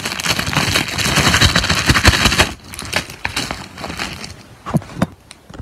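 Close handling noise: a dense crackling rustle of hands, fabric and foam toys being swept across a bedsheet, loud for the first two and a half seconds. It then thins to scattered clicks and taps, with a few sharp ones near the end.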